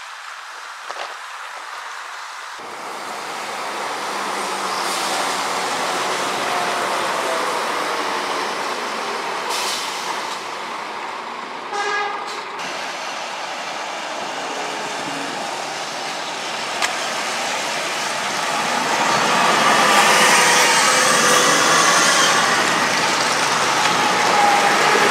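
Single-deck city bus driving toward and past, its engine and tyres growing louder and loudest near the end as it goes by close. A short horn-like toot sounds about halfway through.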